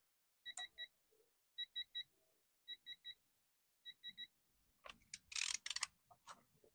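Electronic beeper sounding three quick high beeps, repeated four times about a second apart, typical of a digital torque adapter's alert. Near the end there is a brief clatter of tools being handled.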